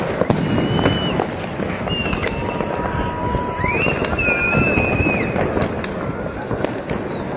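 Many fireworks going off: sharp bangs and cracks over a steady rumble of more distant explosions. Several high whistles are mixed in, one rising and others held for about a second each.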